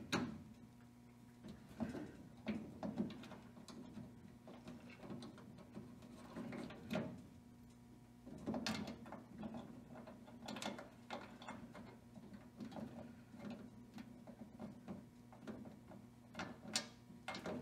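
Scattered clicks, taps and knocks of small metal hardware being handled and fitted by hand against a VW Mk1 Caddy's steel tailgate, as the tailgate handle's mounting nuts go on. A steady low hum runs underneath.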